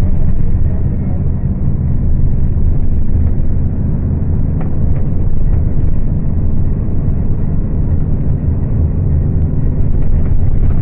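Scania K250UB bus's diesel engine running at high revs, a steady low drone, recorded on a phone microphone.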